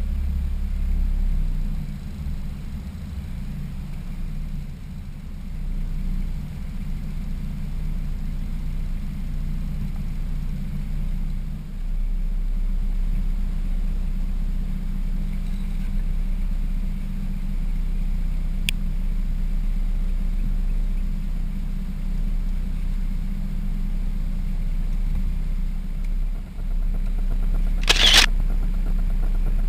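A boat's motor runs with a steady low hum while the boat trolls slowly with rods set out. A single short, sharp knock comes near the end.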